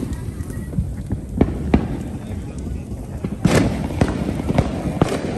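Fireworks going off, a handful of sharp irregular pops and bangs, the loudest about three and a half seconds in.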